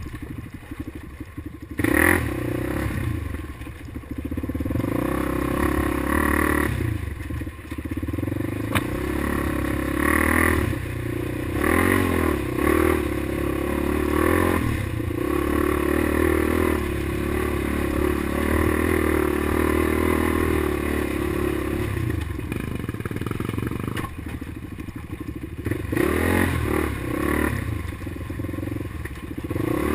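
2003 Polaris Predator 500 quad's single-cylinder four-stroke engine running under changing throttle, rising and easing off again and again, with the clatter of the machine over a rocky trail.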